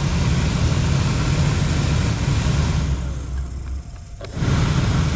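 Truck's HVAC blower motor fan running with a steady rush of air. It cuts out for about a second a few seconds in and then comes back on. The stop-and-start is the intermittent fault from a burnt, arcing pin in the blower motor resistor connector.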